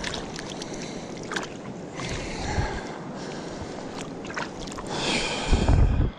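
Hands sloshing and rubbing in shallow river water, being rinsed, with small splashes and drips throughout and louder splashing about five seconds in.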